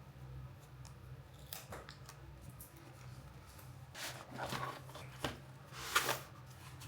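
Close-up handling sounds: several short rustles and scrapes, the loudest about six seconds in, over a faint steady low hum.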